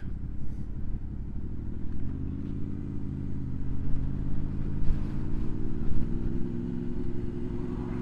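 Honda VFR motorcycle's V4 engine running under way, heard from the rider's seat, its pitch rising gently a couple of seconds in and again near the end as the bike picks up a little speed.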